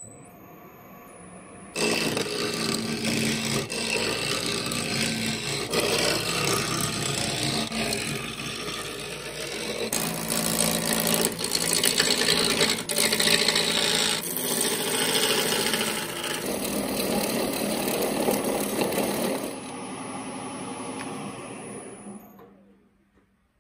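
Wood lathe spinning a square apple burl blank while a gouge roughs it down to a cylinder. A quieter motor hum at first, then from about two seconds in the gouge cuts with a loud, continuous rough scraping. Near the end the cutting gets quieter and the sound dies away.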